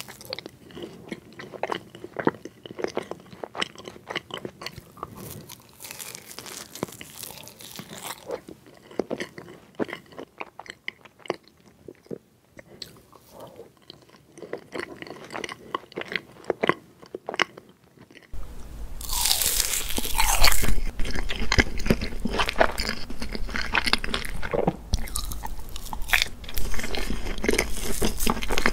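Close-miked eating of crepe cake: bites, chewing and wet, sticky mouth sounds of soft layered crepe and cream, in many short smacks and clicks. About two thirds of the way through, the sound jumps to a louder recording with a low hum underneath, opening with a brief loud noise, and the chewing and mouth sounds go on.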